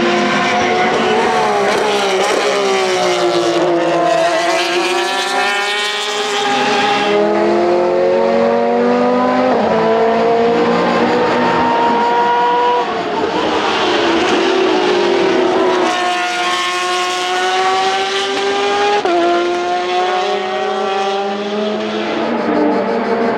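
Porsche 911 RSR GTE race car's naturally aspirated flat-six engine at high revs on track. It climbs steeply through the gears, dropping in pitch abruptly at each upshift, with the pitch falling away as the car passes by.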